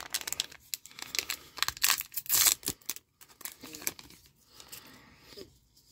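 Foil booster pack of One Piece Card Game OP05 cards being torn open and crinkled: a run of short crackling rips over the first three seconds or so, then fainter rustling.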